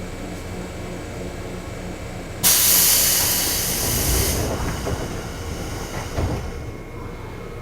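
JR East 211 series electric train: a steady hum, then about two and a half seconds in a sudden loud hiss of compressed air that fades over about two seconds as the air brakes release for departure. Low rumbling follows.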